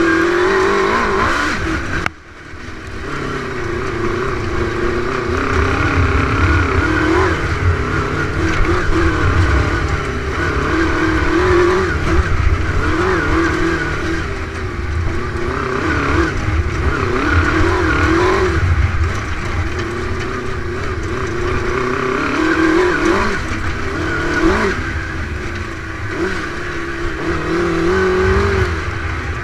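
Dune buggy's Suzuki 600 motorcycle engine revving hard up and down as it is driven along a rough grass track, with wind buffeting on the microphone. The sound drops out abruptly for a moment about two seconds in, then the engine picks up again.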